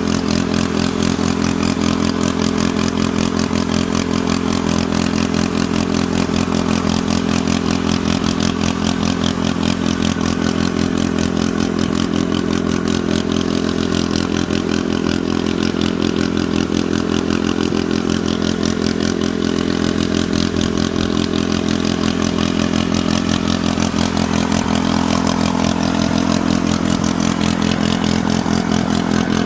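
An engine idling steadily: an even, rapid pulsing over a low hum that does not change.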